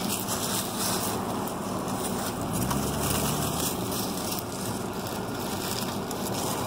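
Steady outdoor noise with a motor vehicle's low engine hum, which swells briefly about three seconds in.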